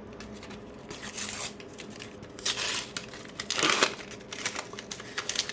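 Paper-foil sticker packet being torn open and its wrapper crinkled, in three short rips and rustles with small clicks of handling between them.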